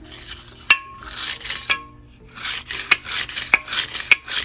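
Chainsaw recoil starter worked back and forth: the pull rope rubbing through the starter housing in repeated strokes, each ending in a sharp click. There are two single strokes first, then a steady run of about one stroke every 0.6 s from a little past halfway.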